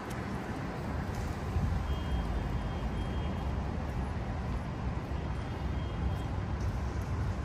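City street traffic: a steady low rumble of vehicle engines and tyres, with a faint high tone coming and going twice.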